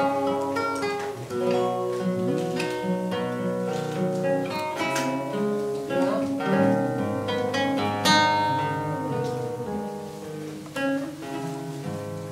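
Nylon-string classical guitar played solo, fingerpicked melody ringing over bass notes and chords.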